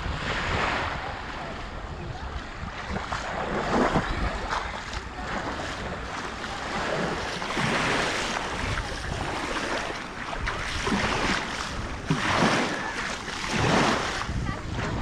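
Sea waves washing onto the shore, swelling and fading every few seconds, with wind rumbling on the microphone.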